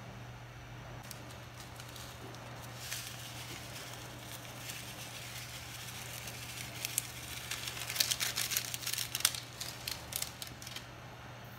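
Seasoning granules shaken from a small box into a pan of simmering sardine-and-chayote stew: a cluster of quick ticks and rattles starting about seven seconds in and lasting about three seconds. Under it, soft crackling from the simmering pan and a steady low hum.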